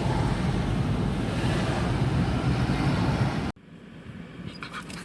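Steady rushing wind and road noise of a moving car, cutting off abruptly about three and a half seconds in; then a quiet car cabin with a few small clicks.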